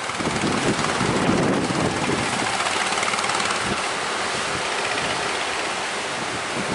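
Speedboat underway: its engine runs steadily under a loud rush of wind and water, with no clear pitch.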